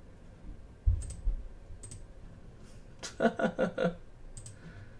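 A few single, well-spaced clicks of a computer mouse, with a low thump about a second in. A short stretch of muttered voice comes around three seconds in.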